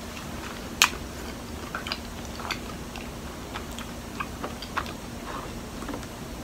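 Close-up eating sounds: soft wet clicks and smacks of chewing sticky mochi, with one sharp click about a second in, then sips through a straw from a milk-tea carton.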